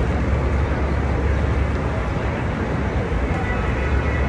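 Steady low rumble of city traffic and street noise.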